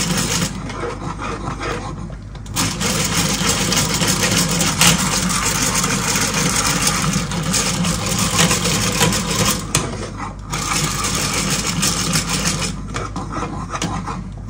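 Hand-cranked rotary egg beater churning thick, creamy khichuri in a pot: its gears whirr and the beaters scrape the pot, easing off briefly a few times.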